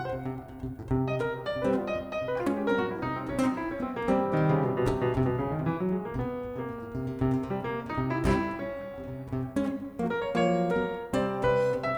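Live jazz piano playing a passage of struck chords and runs.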